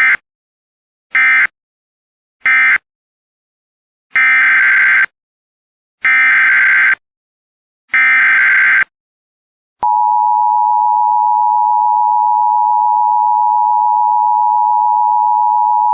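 Emergency Alert System SAME data bursts: three short end-of-message bursts a little over a second apart, then three longer header bursts of the next alert, each a harsh digital screech. About ten seconds in, a steady, loud attention tone begins.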